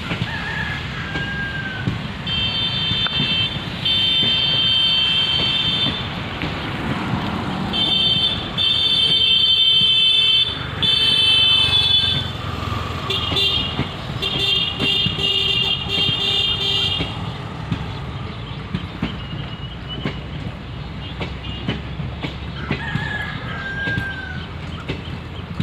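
A high-pitched vehicle horn honking in three long spells, over the steady low rumble of a passing train of automobile carrier coaches.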